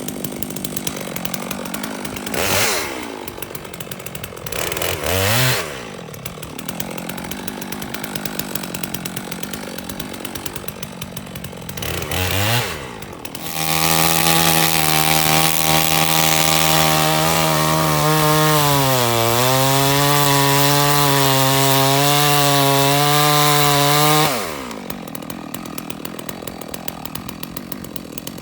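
Stihl MS 660 two-stroke chainsaw idling and blipped three times, then held at full throttle for about ten seconds while cutting. Its pitch dips briefly midway as the chain takes load, and the saw then falls back to idle.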